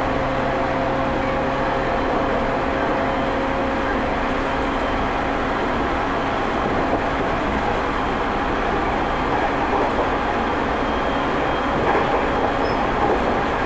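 Running noise inside a JR 209-2100 series electric commuter train's motor car (MoHa 209-2171, MT73 traction motors) at speed: a steady rumble of wheels on the rails. A steady hum in it fades out about five seconds in.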